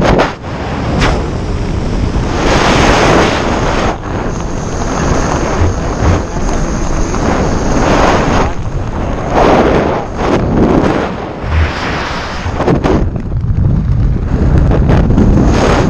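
Wind buffeting a camera microphone on a tandem skydiver's arm during the descent under an open parachute canopy: a loud, rushing noise that swells and eases in uneven gusts.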